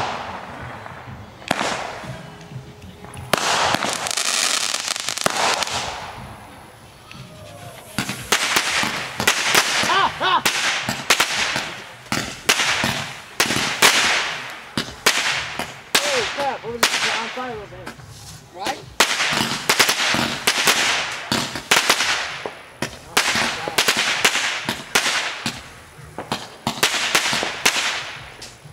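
Consumer aerial fireworks going off: a few separate bangs at first, then from about a third of the way in a dense, rapid run of launches, bangs and crackling bursts.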